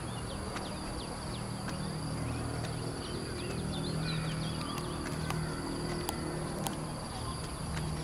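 Outdoor tropical ambience: a steady, high-pitched insect drone with many short bird chirps over it, a few sharp clicks and a low hum underneath.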